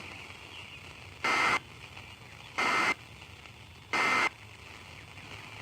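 Emergency Alert System end-of-message signal: three short, screechy two-tone SAME data bursts about a second and a half apart over radio static, marking the end of the tornado warning broadcast.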